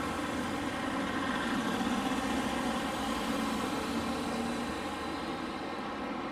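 Road traffic: car engines running and a small car driving past, a steady hum that eases slightly toward the end.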